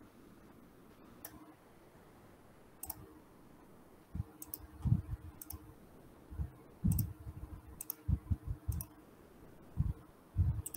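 Irregular clicking at a computer, about eight separate clicks spread through the stretch, with brief low thumps from about four seconds in that are louder than the clicks.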